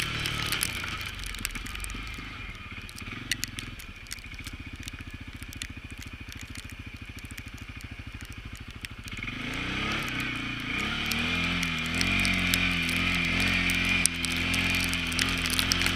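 CFMoto CForce ATV engine easing back to a low, evenly pulsing near-idle for several seconds, then revving up with a rising pitch about nine or ten seconds in and running steadily at higher revs. Scattered sharp clicks and crackles sound throughout.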